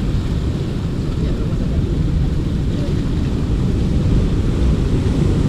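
Steady rumble of ocean surf breaking and washing among shoreline rocks, mixed with wind buffeting the microphone.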